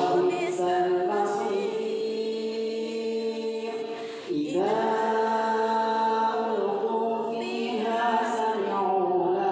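A group of students chanting the Quran aloud in unison (tadarus), drawing out long held notes, with a brief pause for breath about four seconds in.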